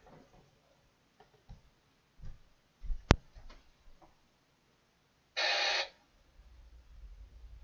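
A radio scanner being handled and switched off: a few soft knocks, then one sharp click about three seconds in. About two and a half seconds after the click comes a half-second burst of static.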